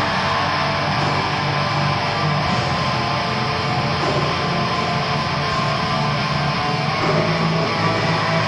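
Atmospheric black metal: a dense, steady wall of distorted electric guitar.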